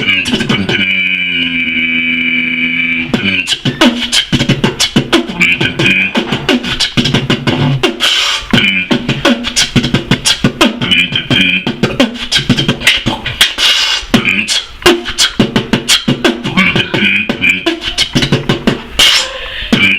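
Beatboxing by one performer: a held, pitched vocal note for about two and a half seconds near the start, then a fast, continuous run of percussive mouth sounds.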